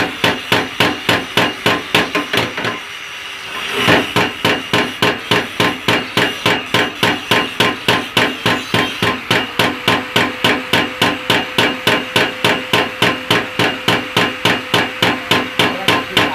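Power hammer striking in a fast, even rhythm of about four blows a second, with a short pause about three seconds in before it resumes; a metallic ring carries under the blows.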